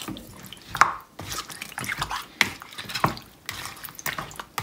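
Silicone spatula stirring chicken pieces through a thick yogurt marinade in a plastic bowl: irregular wet slaps and squelches with sharp clicks, the loudest about a second in.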